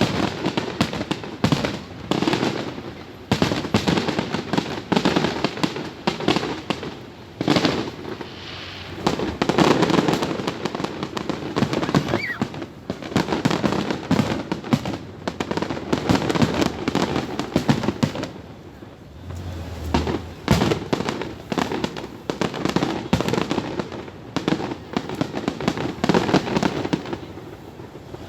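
Fireworks display: a dense, continuous barrage of bangs and crackling pops, easing briefly a few times, including about two thirds of the way through and near the end.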